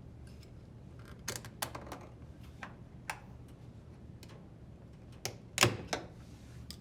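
A few irregular sharp clicks and clacks of plastic and metal parts being handled, the loudest a little over five and a half seconds in, as a hose and its clamp are fitted onto a washer's drain pump. A steady low hum runs underneath.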